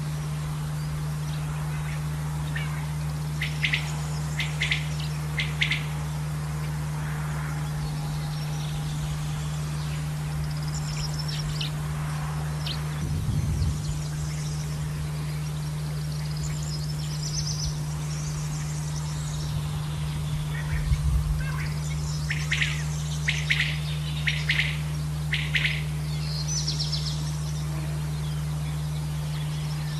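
Male common quail calling: short, sharp notes in two bouts of a few seconds, one about three seconds in and one about twenty-two seconds in, with faint higher chirping between them. A steady low hum runs underneath.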